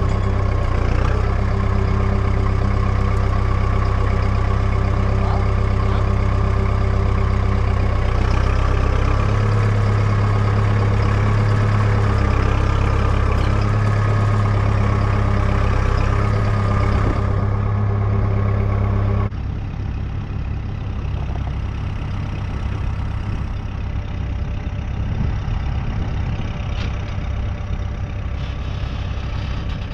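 Kubota tractor's diesel engine running steadily. About two-thirds of the way in the sound changes abruptly to a quieter engine run.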